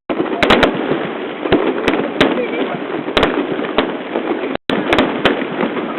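Fireworks shells bursting overhead: a scattered series of sharp bangs, several in quick succession about half a second in and again near the end, over the steady murmur of a crowd. The sound cuts out for a moment about two-thirds of the way through.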